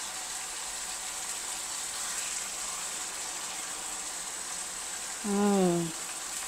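Oil sizzling steadily in a frying pan.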